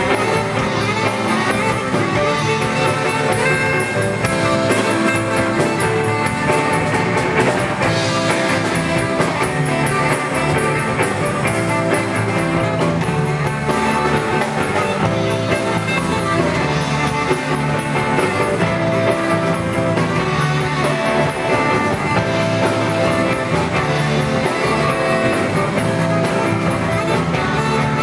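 Live band music: a tenor saxophone playing over guitar and a drum kit, with steady cymbal ticks keeping the beat.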